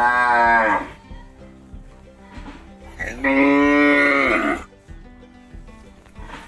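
A cow mooing twice: a short call at the start and a longer one about three seconds in, over quiet background music.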